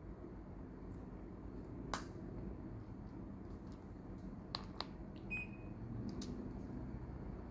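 Daikin inverter split air conditioner running with a low steady hum, broken by a few sharp clicks and one short high beep a little past the middle.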